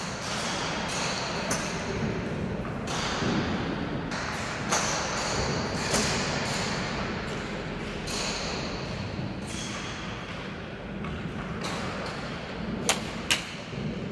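Golf club striking balls at a driving range: a few dull knocks, then two sharp cracks close together near the end, over steady background noise.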